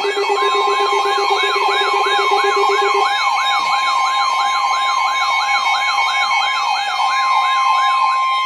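Electronic siren yelping, its pitch sweeping up and down about three times a second, over a steady high tone. A lower steady tone drops out about three seconds in.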